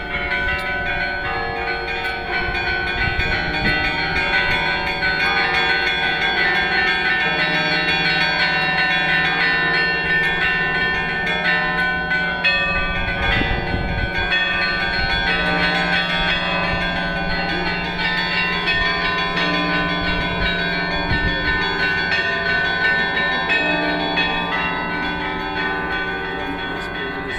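Orthodox church bells ringing a continuous peal: many bells of different pitches struck together and overlapping, small high bells over a low bell's steady hum.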